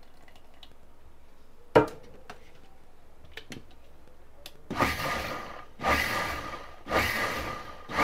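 Electric mixer grinder run in short pulses, about one a second, whirring a thickening egg-and-oil mayonnaise. A single sharp knock comes about two seconds in.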